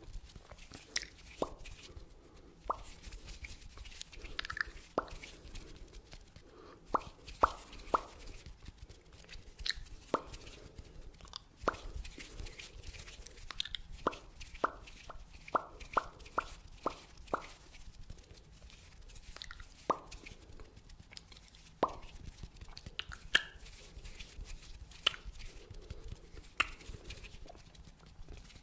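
Close-miked ASMR mouth sounds: a string of separate wet pops and clicks, with a quick run of evenly spaced pops, about two or three a second, around the middle.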